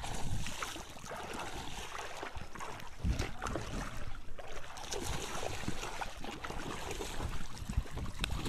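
Wind rumbling on the microphone, with scattered clicks and crunches of gravel shifting underfoot and under hand.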